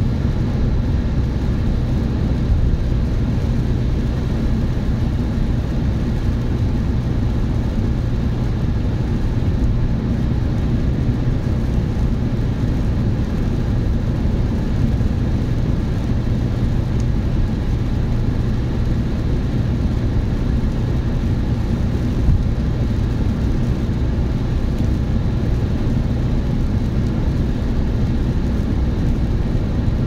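Steady road noise of a car at motorway speed, heard inside the cabin: a continuous low rumble of tyres and engine with a faint steady hum.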